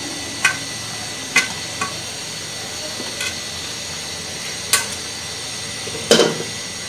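Greens sizzling steadily in a stainless steel frying pan while a metal spatula scrapes and clicks against the pan in a few sharp knocks, with one louder metal clank near the end.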